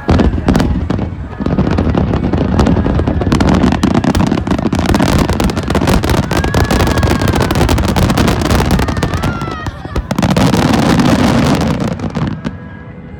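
Fireworks finale barrage: many shells bursting in rapid, overlapping booms with dense crackling, starting suddenly and dying away near the end.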